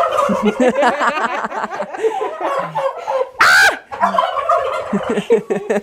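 Several domestic turkeys gobbling over one another in a dense, continuous chorus, with one loud call about three and a half seconds in.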